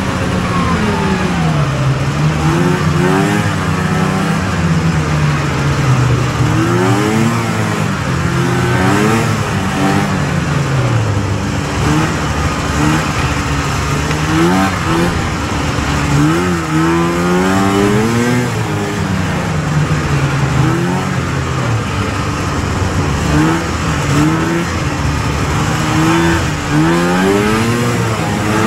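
Snowmobile's two-stroke engine running under way along a trail, its pitch climbing and dropping again and again as the throttle is opened and eased off.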